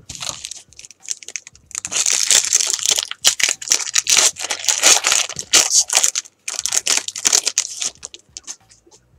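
A foil trading-card pack wrapper being torn open and crinkled by hand: a dense run of crackling rustles and tears, with a short break about two thirds of the way through.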